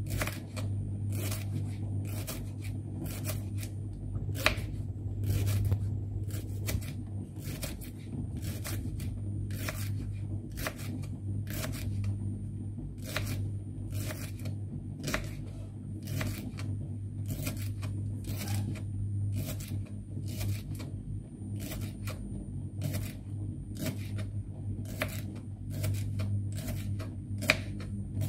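Kitchen knife slicing a leek into thin rings on a wooden cutting board. Each stroke gives a crisp crunch and a tap on the board, in a steady rhythm of about one and a half cuts a second, over a steady low hum.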